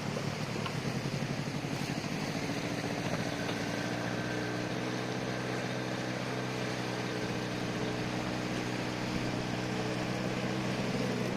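Yamaha 40 outboard driving a water-jet boat, running under way with a steady drone. It pulses unevenly for the first couple of seconds, then settles to an even pitch.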